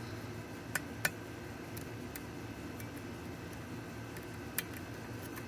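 Small sharp metallic clicks of a lock pick and tension wrench working the pins inside a lock cylinder, two about a second in and another near the end, with fainter ticks between, over a steady low hum.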